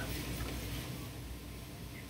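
Quiet room tone: a faint steady hiss with a low electrical hum.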